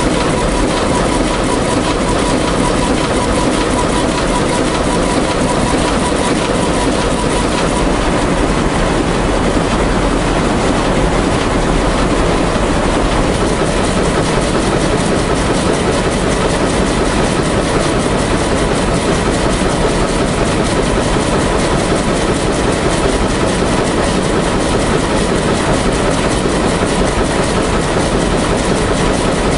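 Industrial terry-towel weaving loom running at full speed: a loud, steady, dense mechanical clatter.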